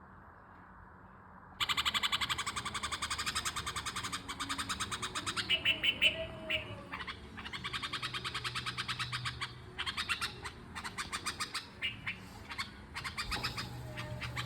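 Red-vented bulbul calling from about a second and a half in: long runs of very rapid, harsh chattering notes broken by short gaps, with a few clearer notes between them.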